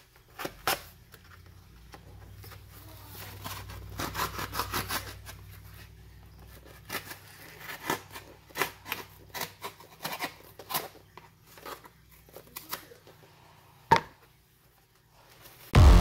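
Knife blade slicing and sawing through the packing tape and cardboard of a shipping box: an irregular run of short scraping cuts, rustles and crinkles. One sharp knock about 14 seconds in, and electronic music cuts in right at the end.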